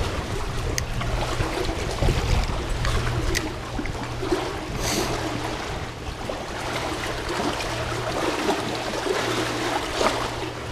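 Shallow river water running and trickling around a wading angler's legs, an even wash of water noise with a steady low hum underneath and a few faint clicks.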